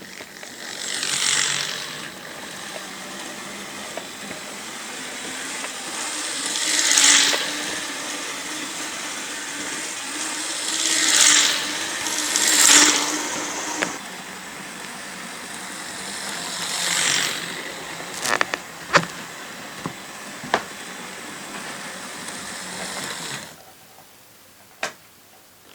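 OO gauge model train locomotive running on its track, its small electric motor and gears whirring, getting louder several times as it passes close by. A few sharp clicks come near the end, and the running stops shortly before the end.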